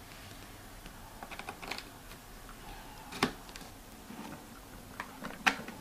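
Small plastic clicks and taps of USB cable plugs being fitted into a laptop's side USB ports, with one sharper click about three seconds in.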